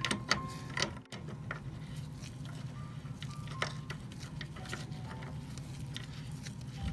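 Scattered small clicks and taps of hand work on metal faucet parts, over a steady low hum.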